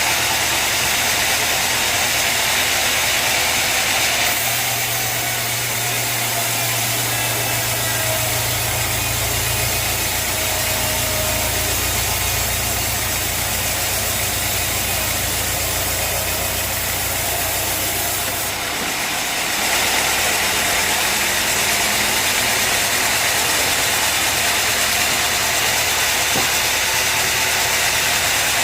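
Sawmill machinery running steadily under a constant hiss. About four seconds in, a deeper engine hum comes up and holds, then drops away about two-thirds of the way through.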